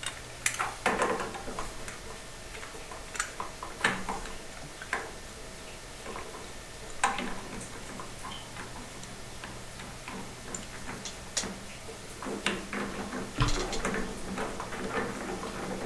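Scattered light clicks and knocks of gas pipe fittings being handled and put together, with several closer together near the end.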